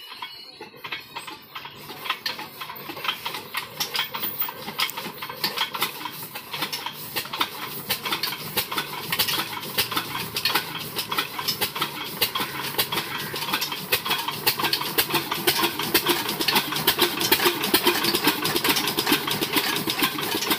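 12 hp single-cylinder diesel engine starting up and running with a rapid, even chugging beat that grows steadily louder, driving a chaff cutter through a long flat belt.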